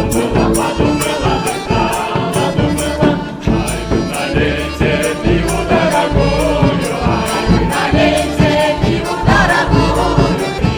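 A women's folk choir singing a lively song with a live band: tuba and bass drum keep a steady pulsing bass beat, and a high percussion ticks evenly several times a second.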